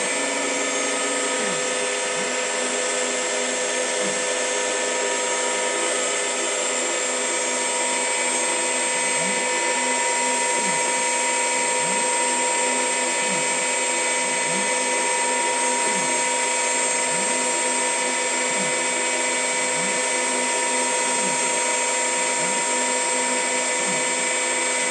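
Spindle of a DIY CNC lathe running steadily at speed in a cold run, with no cut being made: a steady motor whine made of several tones, with a faint low sweep repeating about once a second.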